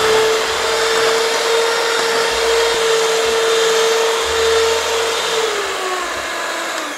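Electric hand mixer beating whipped egg, sugar and vanilla in a glass bowl, its motor whining at a steady pitch. It is switched off near the end and winds down with a falling pitch.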